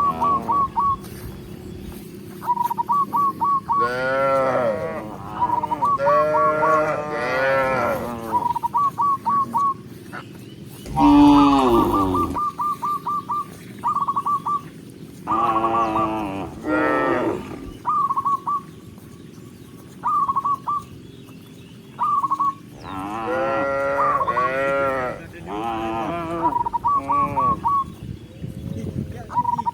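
Cattle mooing again and again, several long calls overlapping at times, with the loudest one about eleven seconds in. Between the moos come short, high chirping notes in quick groups of three to five.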